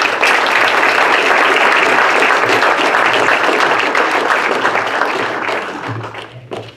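Audience applauding, a dense steady clapping that fades out over the last second or so.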